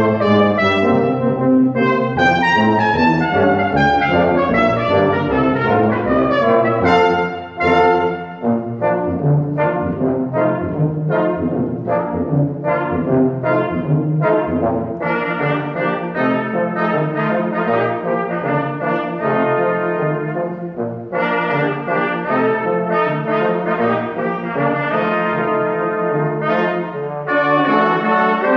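Live brass ensemble of trumpets, French horn, trombone and tuba playing a Brazilian tango arrangement, a steady low tuba line under moving trumpet and trombone parts, with a brief break about seven seconds in.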